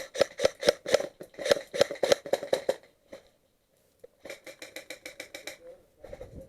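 Airsoft gun firing two strings of rapid shots, evenly spaced sharp clicks: one for nearly three seconds, then after a pause of about a second a shorter, faster string.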